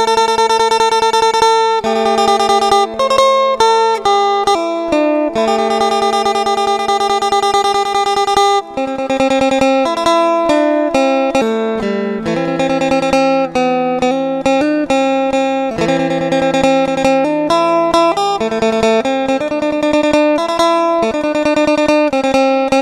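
Music: a plucked string instrument playing a melody, note after note.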